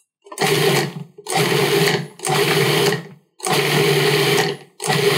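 Cuisinart 14-cup food processor pulsed about five times, the motor and blade whirring in short bursts with brief gaps between them. It is rough-chopping a first load of parsley, shallot, jalapeño and garlic.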